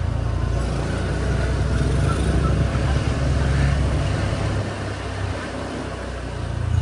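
Small motorbike engine running at low road speed, heard from on the bike as a steady low hum. It eases off about two-thirds of the way through and picks up again at the end.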